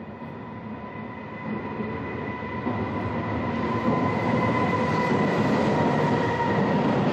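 JR Freight EF210 electric locomotive hauling a container freight train, approaching and passing close by: the rumble grows steadily louder until the locomotive passes about four seconds in, then the container wagons keep rolling past. A steady high whine runs through the approach.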